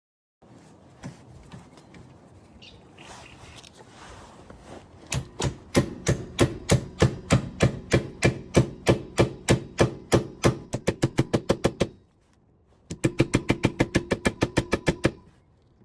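Hammer blows on a steel impact socket, driving it onto a rear brake bolt: a steady run of sharp metallic strikes about four to five a second that quickens, a short pause, then another quicker run. Quieter handling noise comes before the hammering starts.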